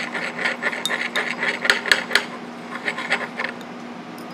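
Glass Erlenmeyer flask being swirled on a hot plate's top, its base scraping and ticking irregularly against the surface, over a steady low hum.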